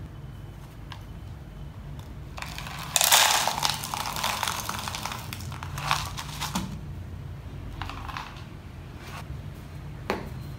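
Small pebbles poured from a paper bag into a cut plastic bottle pot, rattling and hissing against the thin plastic for about four seconds, loudest as the pour starts, with a shorter trickle later. A single knock near the end as a plastic container is set down on the wooden table.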